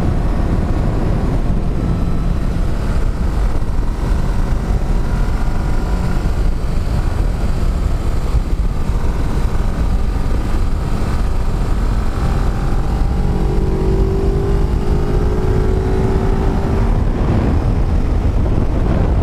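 Motorcycle riding at speed: the engine runs steadily under a heavy rush of wind on the microphone, and its pitch stands out more clearly for a few seconds past the middle.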